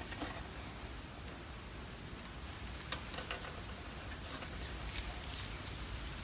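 Faint, occasional light clicks and taps of metal as brake pad hardware clips and a steel caliper bracket are handled and fitted by hand.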